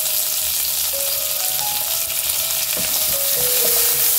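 Curry leaves sizzling in hot oil with mustard seeds, urad dal, ginger and green chilli in a non-stick kadai, a steady dense hiss of frying. A wooden spatula stirs the tempering, with one light knock about three seconds in.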